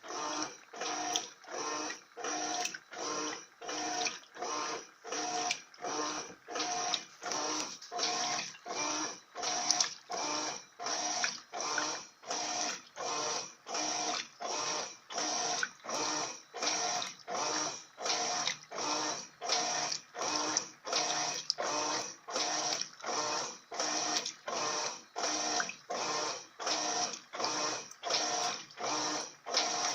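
Electrolux LF80 top-loading washing machine agitating a load of sheets in high water: the agitator swishes back and forth with a motor hum on each stroke, about three strokes every two seconds.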